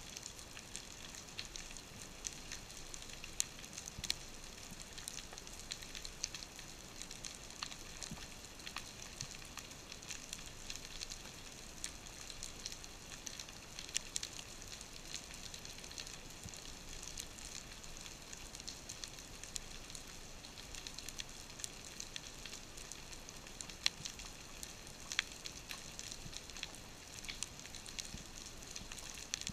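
Underwater reef ambience: a steady faint hiss full of scattered sharp clicks and crackles.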